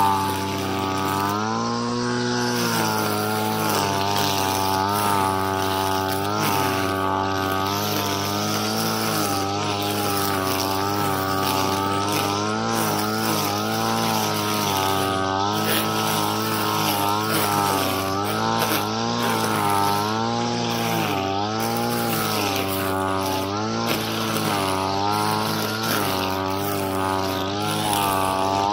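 Engine-driven brush cutter running at high speed. Its engine note dips and recovers roughly once a second as the cutting load on it changes.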